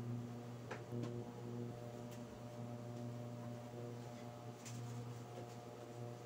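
Steady electrical hum of an induction cooktop running under a lidded pot, with a few faint clicks.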